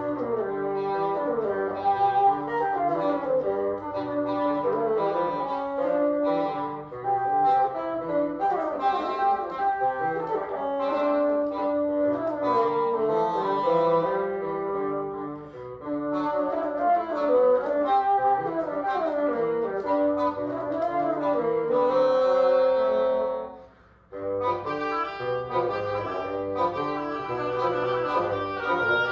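A double reed ensemble of oboes, English horn and bassoons playing a blues piece together, with moving lines over a bassoon bass. The playing stops briefly a few seconds before the end, then comes back in.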